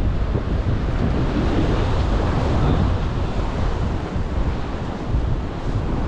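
Wind buffeting the microphone in gusts, over the wash of sea waves against the breakwater's concrete wave-breaking blocks.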